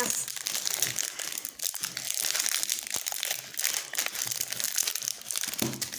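Wrapper of a MrBeast chocolate bar crinkling and crackling in the hands as they work at opening it; the wrapper won't open easily.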